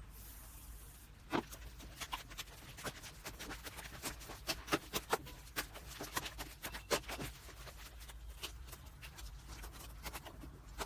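Slime being handled, making many irregular small clicks and pops.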